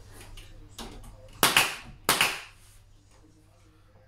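Two sharp shots from a pin nailer about two-thirds of a second apart, driving pins to fix timber staircase spindles in place, with a few light knocks before them.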